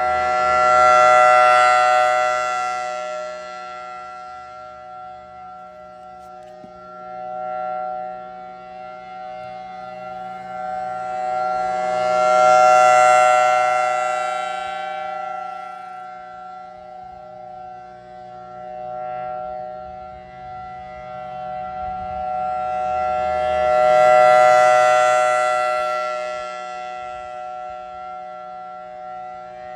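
Federal Signal Thunderbolt 1003A2 rotating outdoor warning siren sounding a steady wail at full speed, a two-note chord that holds its pitch. The sound swells loudest about every twelve seconds as the rotating horn sweeps past, three times, with weaker swells in between.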